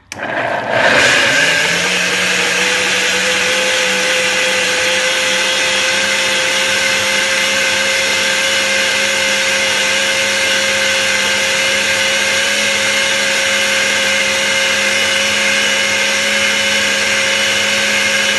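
Countertop blender switching on and spinning up to full speed within about a second. It then runs steadily with an even whine, blending jackfruit cake batter.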